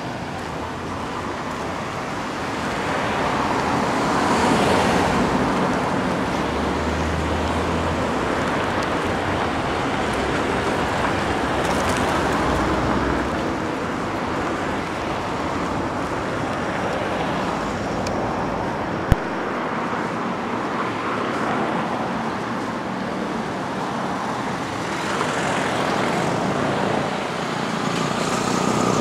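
Steady urban traffic noise from passing cars, swelling a couple of times as vehicles go by, with a single sharp click about two-thirds of the way through.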